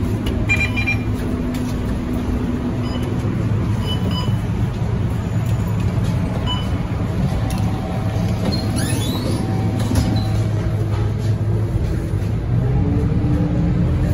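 Interior of a Scania K230UB single-decker city bus under way, its diesel engine running with a steady low hum. A few short high beeps in the first half. Near the end the engine note rises and gets a little louder as the bus accelerates.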